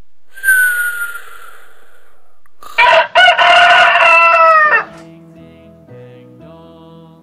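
A rooster crowing once, loud, for about two seconds, as an edited sound effect over a sleep scene. Before it comes a short falling whistle, and after it soft, slow music starts.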